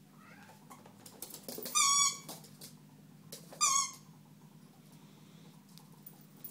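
Squeaky rubber dog-toy ball squeaking twice, about two seconds apart, each a short high squeak.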